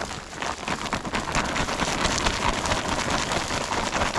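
Sour mash (fermented soaked corn) being dumped out onto the ground in a dense, continuous patter of kernels.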